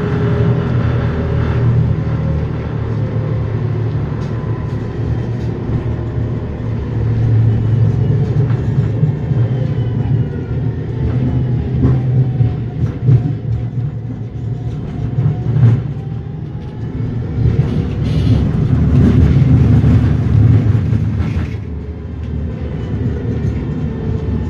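STOAG NF6D low-floor tram running between stops, heard on board: a steady deep rumble of wheels on rail, with a faint drive whine gliding up and down in pitch and a few short knocks in the middle.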